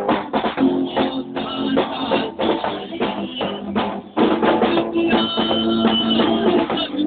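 Amateur rock band playing a song live: drum kit and guitar together, with held notes over a steady drum beat. It dips briefly about four seconds in, then comes back louder.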